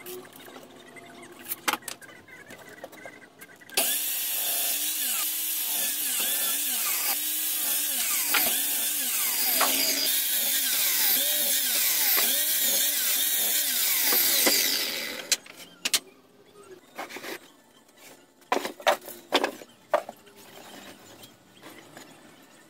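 Electric mitre saw running and cutting pallet boards for about eleven seconds, its whine dipping and rising over and over. Before and after, wooden knocks and clatter as the boards are handled and set down.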